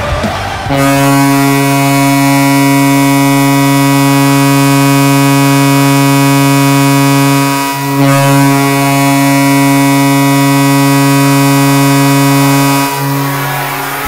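Tampa Bay Lightning arena goal horn sounding: a deep, many-toned horn blast held for about seven seconds, then after a brief break a second blast of about five seconds that cuts off near the end.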